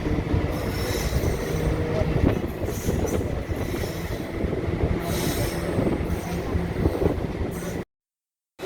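ICF passenger coach running over the track, wheels giving a steady rumble and clatter with a few brief high squeals. The sound cuts out abruptly to silence near the end.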